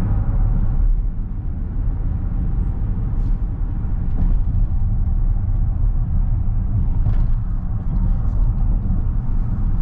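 2021 Dodge Durango R/T's 5.7-litre HEMI V8 cruising, a steady low rumble of engine and road noise.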